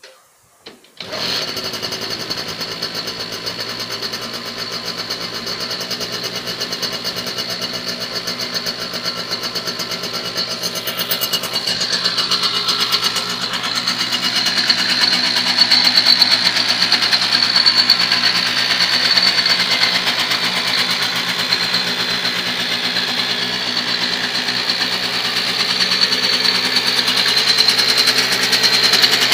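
Simson Schwalbe KR 51/1 moped's 50 cc two-stroke single-cylinder engine catching about a second in, then idling steadily with a fast, even beat, a little louder from about halfway through.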